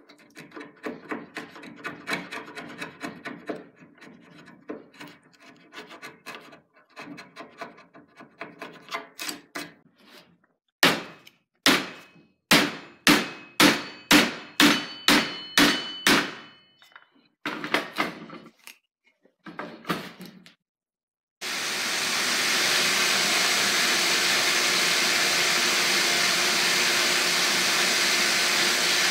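A chisel pares ash wood in short scraping strokes. Then come about a dozen sharp knocks, roughly two a second, with a faint metallic ring as the hatchet head is driven onto the new ash handle. Two-thirds of the way through, a Craftsman belt sander cuts in and runs steadily.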